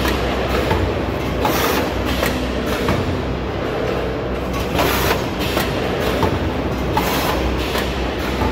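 Snack pouch packing machine with a 10-head multihead weigher running: continuous mechanical clatter over a low hum, small regular clicks, and a short burst of hiss every two to three seconds as it cycles.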